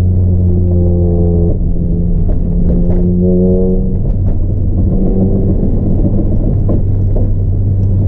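Music with long held, horn-like notes, over the steady low rumble of a car driving.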